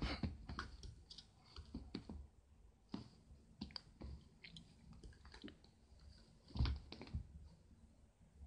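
A kitten playing with a skipping rope on a fabric armchair: scattered light clicks, taps and rustles as the rope and its plastic handles are batted about, with the loudest knock about six and a half seconds in.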